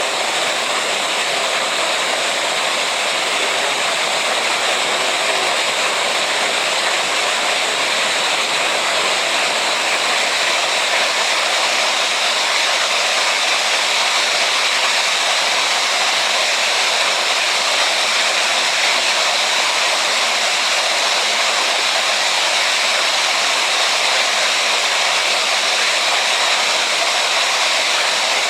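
Steady rushing noise of falling water, even and unbroken throughout.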